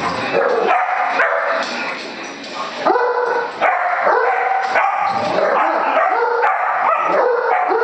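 Dogs barking and yipping repeatedly at a balloon, a Great Dane among them, in a steady run of short, sharp calls.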